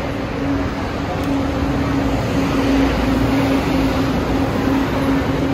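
A city bus running close by: a steady hum with a constant drone over street noise.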